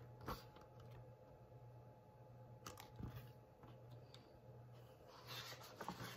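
Near silence: a steady low room hum, with faint taps and rustles of a hardcover picture book being handled and its pages turned, the rustling growing a little toward the end.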